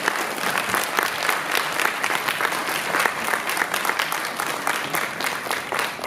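Audience applauding, a dense clatter of many hands clapping that dies away near the end.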